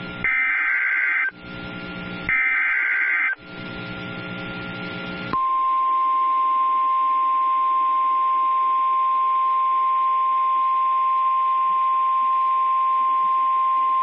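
NOAA Weather Radio emergency alert tones. First come the last two screeching bursts of the SAME digital data header, each about a second long with a second's pause between them, and a low buzz from the receiver can be heard in the pauses. About five seconds in, the steady single-pitch 1050 Hz weather radio warning alarm tone starts and holds for about nine seconds.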